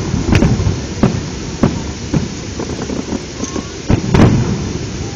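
Aerial fireworks going off: a string of sharp bangs at irregular intervals, about seven in five seconds, each trailing into a low rumble, the loudest two close together near the end, over a steady background hiss.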